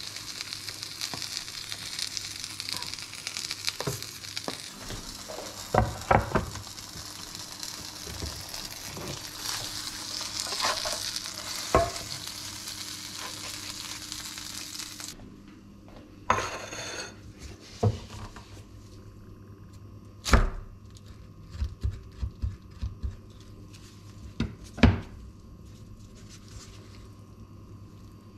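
Egg-filled tortilla wrap frying in a pan, a steady sizzle with occasional spatula taps and scrapes. About halfway through the sizzle stops abruptly; a knife then cuts through the crisp wrap on a wooden cutting board, with a short scrape and several sharp knocks.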